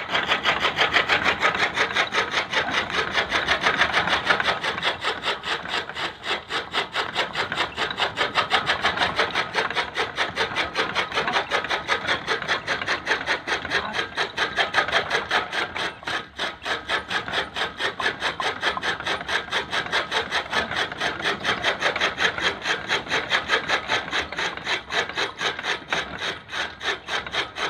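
Bull-driven chaff cutter chopping fodder: a fast, even rhythm of rasping cutting strokes that runs on steadily.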